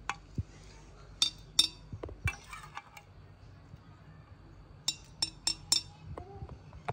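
Metal spoon clinking and scraping against a stainless steel plate and a glass jug while ground mint paste is scooped and tapped off. There are four sharp clinks in the first two and a half seconds, then another quick run of four about five seconds in.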